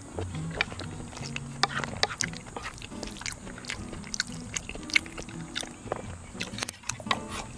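Background music with held, stepping low notes, under close-up eating sounds: chewing and scattered sharp clicks of utensils against a dish.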